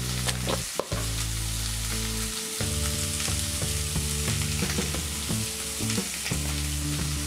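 Sliced onions and green chillies sizzling steadily in hot coconut oil in a kadai, freshly salted and just starting to sauté. There is a single short knock a little under a second in.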